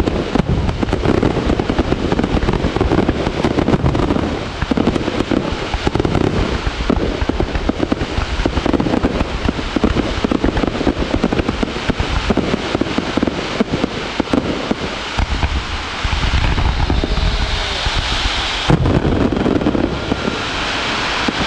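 Aerial fireworks display: a dense barrage of shells bursting and crackling, many rapid overlapping bangs.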